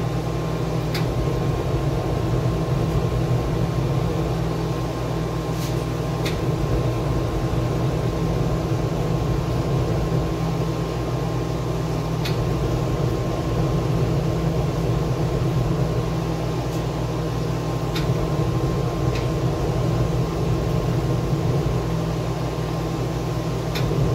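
A machine's steady hum with several steady tones, broken by about eight faint sharp ticks.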